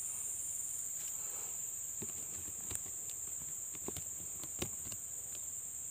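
Steady high-pitched drone of an insect chorus, with a few faint light clicks and taps scattered through it.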